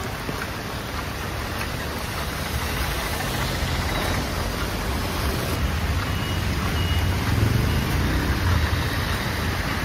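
Heavy rain pouring on a wet street, with motor traffic passing through the standing water: a low engine rumble grows and is loudest about three quarters of the way in.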